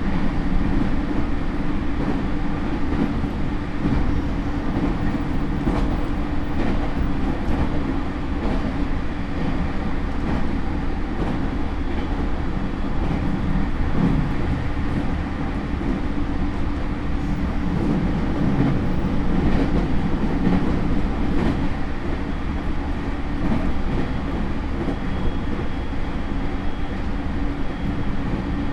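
JR East E231-series suburban electric train (motor car with Hitachi IGBT inverter) running steadily at speed, heard from inside the car: continuous rumble of wheels on rail with scattered faint clicks. A faint, steady high tone comes in near the end.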